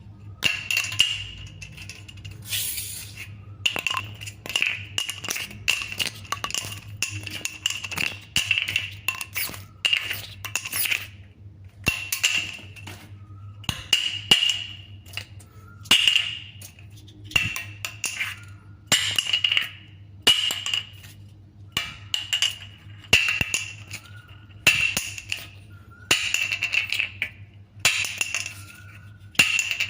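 Plastic bottle cap clicking and clattering as it is flipped and tossed: quick bursts of sharp clicks about every second or so, each with a short bright ring.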